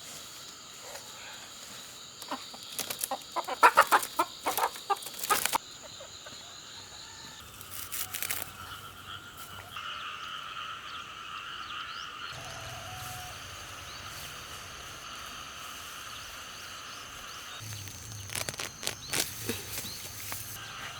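Chickens clucking in short clusters, a few seconds in, again around eight seconds and near the end, over a steady high-pitched drone.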